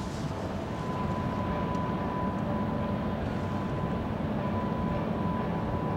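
Cruise ship's engines and onboard machinery running, heard across the water as a steady low rumble with a thin, steady whine over it.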